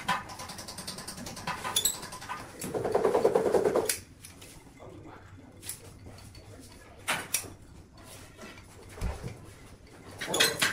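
Hand caulking gun being pumped while laying a bead of sealant: scattered trigger clicks and rattles, with a buzzy rasp lasting about a second near three seconds in.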